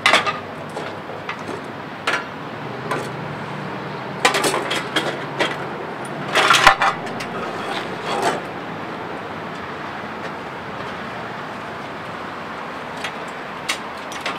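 Scattered knocks and clattering of hard objects being handled and set down over a steady background noise. The loudest bunch of knocks comes about six and a half seconds in; after about eight seconds only a few faint clicks remain.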